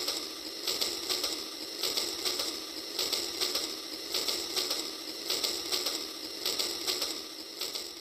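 Rail King remote-control toy train's small motor and gears running as it rolls along its track: a steady mechanical clatter of clicks that swells in regular pulses.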